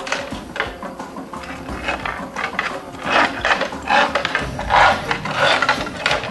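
Slate being worked by hand with a tool in quick, rough scraping strokes, about two a second and unevenly spaced, loudest in the middle.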